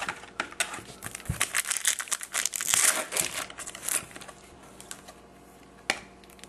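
Foil trading-card pack wrapper crinkling as it is handled, a dense crackle for about four seconds, then quiet apart from one short click near the end.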